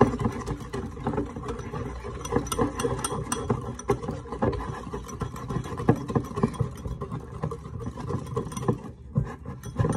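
Wire whisk beaten fast by hand in a ceramic bowl, a quick rattling scrape and clink of metal against the bowl as a chocolate mixture is whipped to thicken it. It stops briefly near the end.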